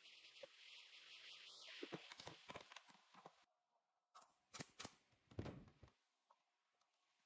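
A pneumatic brad nailer fires four sharp shots in quick succession, nailing pine seat slats to the chair frame. Before that, wooden slats knock and click lightly as they are shifted into place.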